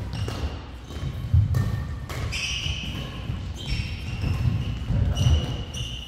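Badminton doubles rally: sharp racket hits on the shuttlecock, short high-pitched shoe squeaks on the court mat, and thudding footfalls as the players move and lunge.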